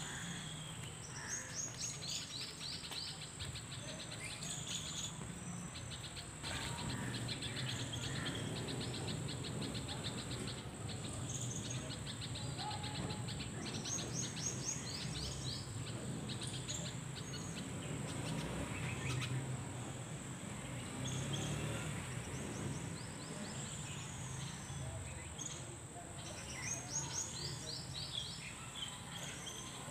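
Outdoor ambience: birds calling in repeated short runs of quick chirps every few seconds, over a steady high-pitched insect drone and a low background hum.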